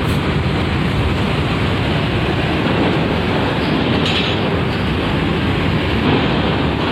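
Large intercity buses driving past in a steady rumble, mixed with strong wind blowing across the microphone.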